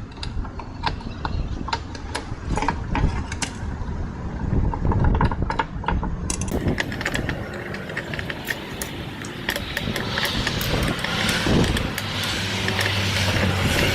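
Small metallic clicks and taps of a screwdriver and hard-drive parts being handled while the circuit board is unscrewed, with road traffic in the background that swells in the second half.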